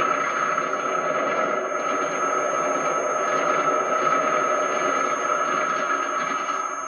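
Diesel-hauled Pullman train, headed by a Brush Type 4 locomotive, running across a viaduct: a steady high-pitched whine over the rumble of the train, dying away near the end.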